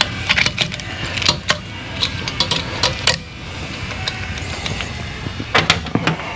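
Scattered metallic clicks and taps of hand tools and engine parts as the compression releases are being removed from a Harley-Davidson Twin Cam engine, over a steady low hum. A quick cluster of clicks comes near the end.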